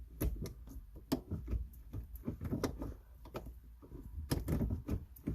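Manual gearshift lever of a car with new aftermarket shifter cable clamps being moved through the gates, giving a string of clicks and clunks. The lever is hunting for fifth gear, which is hard to engage.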